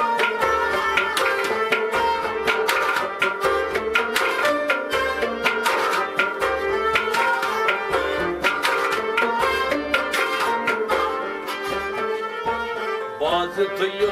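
Kashmiri folk music: a tumbaknari, the clay goblet drum, beats a steady rhythm under a stringed instrument playing the melody. A man's singing voice comes in near the end.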